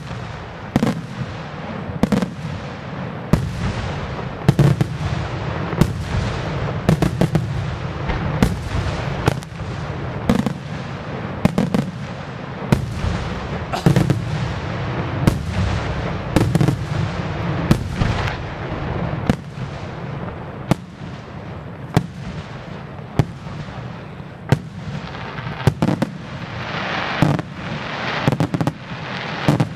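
Aerial fireworks shells bursting in quick succession, sharp bangs about once a second over a continuous low rumble, with a stretch of crackling near the end.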